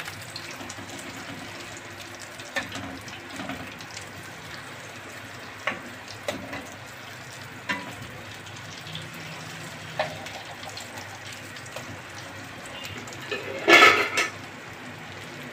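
Egg-dipped potato cutlets shallow-frying in ghee in a pan, sizzling steadily, with a few sharp taps of the spatula and fork against the pan as they are turned. A louder burst comes near the end.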